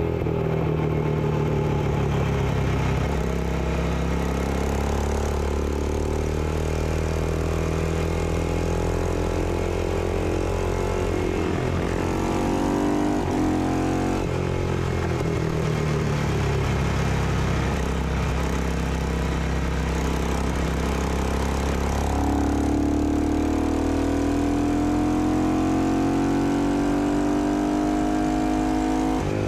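On-board sound of a classic Ducati bevel-drive single-cylinder four-stroke racing motorcycle at race speed. The engine note holds fairly steady, climbs and drops a little before the middle, then rises in one long pull through the second half and falls off sharply at the very end as the rider shifts or rolls off.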